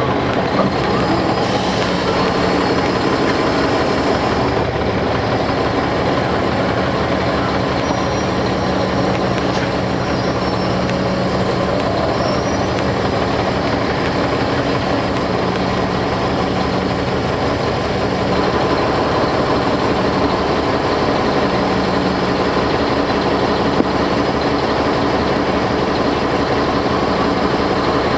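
Caterpillar C13 ACERT diesel engine of a standing NABI 416.15 transit bus, idling steadily.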